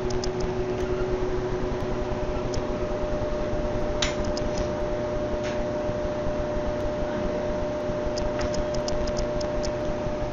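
Steady background hum with two held tones over a rumbling noise, and a few small clusters of light clicks, about four seconds in and again around eight to nine seconds.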